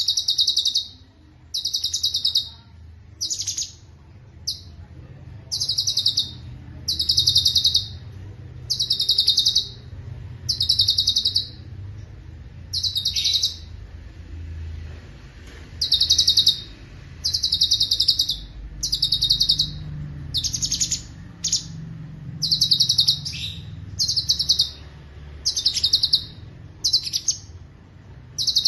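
A cucak cungkok, a bulbul, singing a series of short, rapid trilled phrases, each under a second and repeated every second or two, with a pause in the middle and a few short downward-swept notes later on. A low hum runs underneath.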